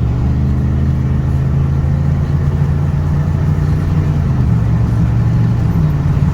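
2009 Ford F-150's V8 engine running steadily, its pitch shifting slightly, with no tick: the left exhaust manifold that was ticking has been replaced.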